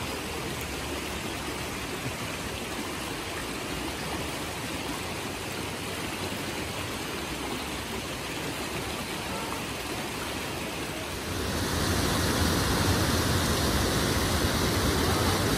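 Fast-flowing rocky stream rushing over stones, a steady noise; about eleven seconds in it gets louder as a cascade of small waterfalls takes over.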